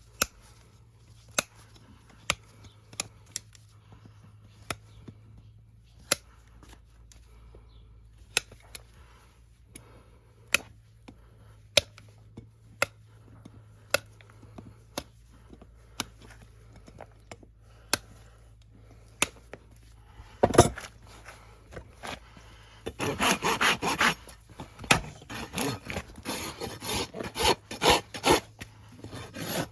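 Sharp snips of hoof trimming about one a second, a louder knock about two-thirds through, then a hoof rasp filing the horse's hoof in quick repeated strokes near the end.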